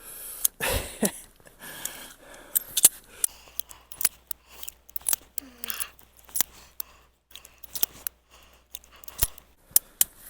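Many short metallic clicks, coming irregularly, from a Cimarron single-action .45 Long Colt revolver being worked by hand: the cylinder is clicked around and the cartridges or cases are handled.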